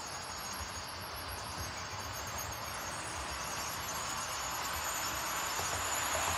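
Model light-rail tram running along the track, a steady whirring hiss of its small motor and wheels that grows slowly louder as it comes nearer.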